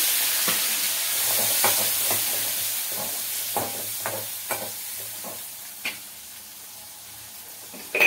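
Onion, curry leaves and tomato sizzling in hot oil while they are stirred, with a utensil knocking against the pan at irregular intervals. The sizzle gradually dies down, and there is one louder knock at the end.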